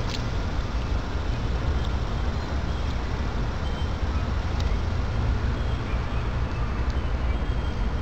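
Steady outdoor background noise: a low, unsteady rumble with a fainter hiss above it and a few faint ticks.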